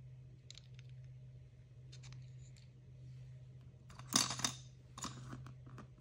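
Hands handling unboxing packaging: a few small clicks and rustles, then a loud crinkling burst about four seconds in and a shorter, softer run of crinkles about a second later, over a low steady hum.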